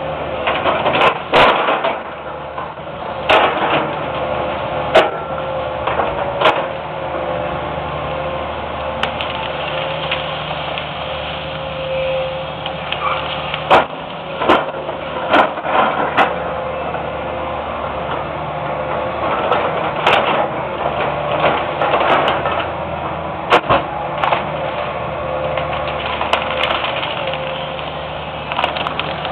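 Hitachi EX200 excavator's diesel engine running steadily under load while it shoves brush, with repeated sharp cracks and snaps of branches breaking at irregular intervals.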